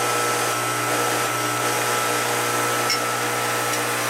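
Lionel O gauge model railroad layout running: a steady electric motor whir over a constant mains hum.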